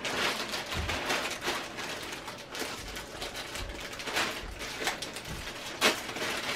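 Plastic mailer bag rustling and crinkling as it is handled and opened and a plastic-wrapped garment is pulled out, with one sharper crackle near the end.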